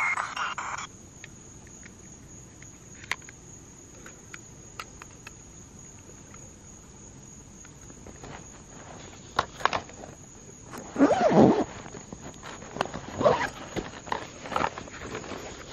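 Quiet night ambience: a faint steady high insect drone, then from about eight seconds in, scattered clicks, rustles and knocks.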